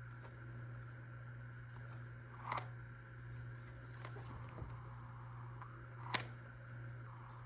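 Puzzle box being handled as its maze mechanism is worked: two sharp clicks, about two and a half and six seconds in, with a few faint ticks between them, over a steady low hum.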